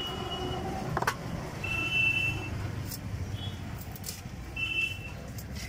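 A small fish being scaled by hand against an upright boti blade, giving a few sharp scrapes and clicks over a steady low traffic and market rumble. Three short high-pitched tones sound briefly: near the start, about two seconds in, and near the end.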